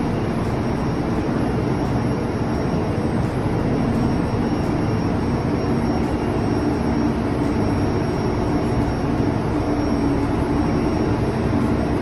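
Steady drone of running machinery with a low hum, unchanging throughout.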